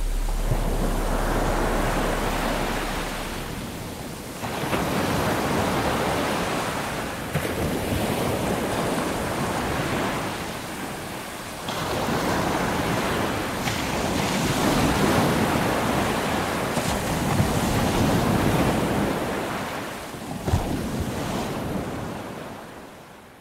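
Ocean surf breaking and washing up a sandy beach, rising and falling in long swells several seconds apart, with some wind on the microphone. It fades out near the end.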